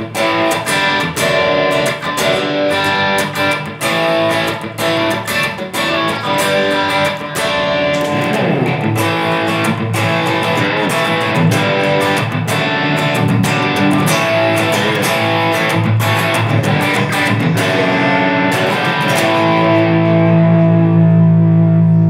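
Electric guitar played through a Valeton GP-200 multi-effects processor: a run of single notes with string bends through the middle, ending on a held chord.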